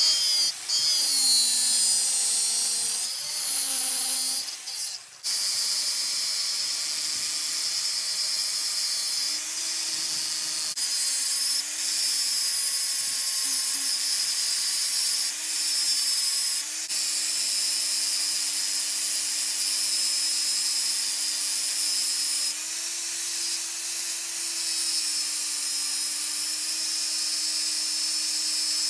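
Angle grinder grinding a forged steel blade: the motor's steady whine sags slightly each time the disc bites, over a harsh grinding hiss. The sound drops out briefly about five seconds in, then resumes.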